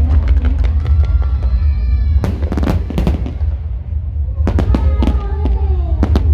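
Fireworks and firecrackers going off in a quick, irregular series of sharp bangs over a steady low rumble.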